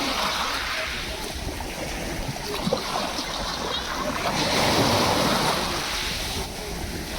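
Sea waves washing onto the shore, the surf swelling at the start and again about two-thirds of the way through.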